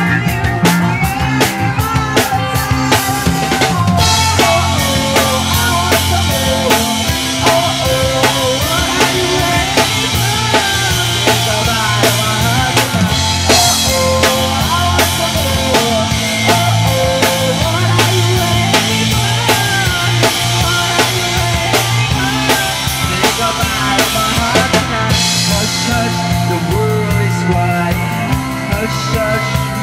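Rock band playing an instrumental passage with no singing: a drum kit keeping a steady beat under a bass line and a melodic lead line whose notes bend up and down.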